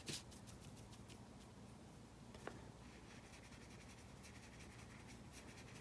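Near silence with faint dry scratching of a small paintbrush's bristles, picking up graphite powder and brushing it onto drawing paper. The scratching is busiest in the first second or so, with one small click about halfway through.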